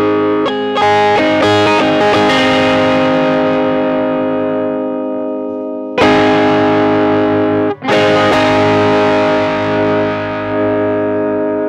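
Electric guitar played through overdrive and distortion pedals: a few quick chord changes near the start, then chords struck and left to ring. A new chord comes about six seconds in, and another follows a brief break near eight seconds.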